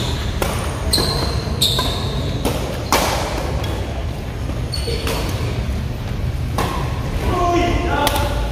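Badminton rackets hitting a shuttlecock in a rally: a series of sharp, echoing hits, roughly one every half-second to two seconds, over the steady hum of a large hall.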